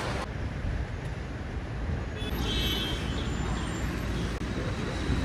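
Steady road traffic rumble from cars and taxis at a terminal drop-off curb, with a brief faint high-pitched tone a little past two seconds in.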